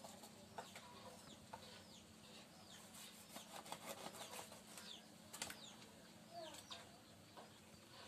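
Faint scraping and clicking of a knife scaling and cleaning a fish on a cutting board, a stroke every half second or so, with short falling chirps in the background.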